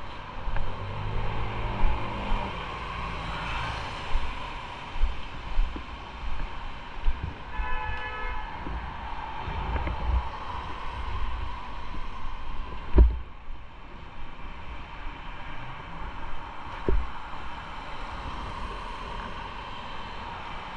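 Traffic passing on a wet city street, heard from a motorcycle, with wind bumping the microphone. A short car horn toot comes about eight seconds in, and a sharp knock just after thirteen seconds.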